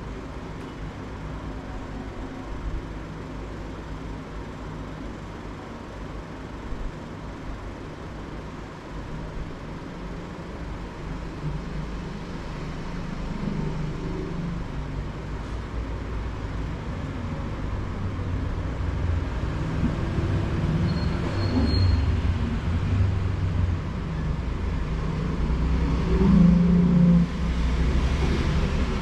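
Low rumble of road traffic with vehicle engines, growing louder over the second half.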